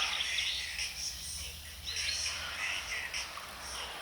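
Songbirds chirping and singing in the background, over a steady low rumble.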